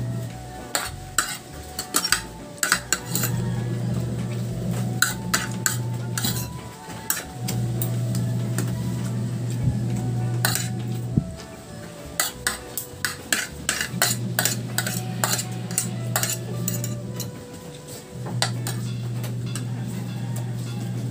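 Metal spoon and fork clinking and scraping against a ceramic plate while eating, many quick irregular clinks throughout.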